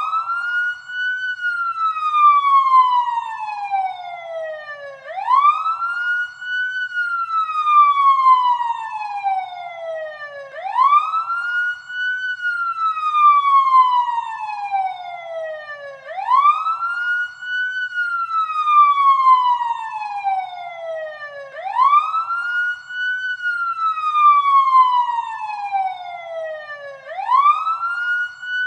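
Siren sound effect from the Voice Changer Plus app: a wailing tone that rises quickly and then falls slowly, repeating about every five and a half seconds, five times over.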